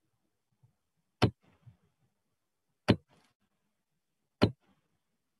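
Three sharp clicks, evenly spaced about a second and a half apart, with near silence between them.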